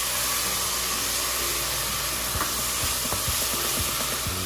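Lemon juice hissing and sizzling as it boils off on hot browned onions in an enamelled cast-iron Dutch oven, sending up steam, while a wooden spoon stirs and scrapes the pot with a few faint clicks.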